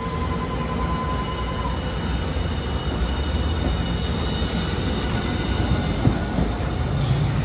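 Hiroden Green Mover LEX low-floor electric tram pulling out of the stop and rolling past. It runs with a steady electric whine that shifts to higher tones about two seconds in, over a low running rumble. The low rumble grows louder near the end.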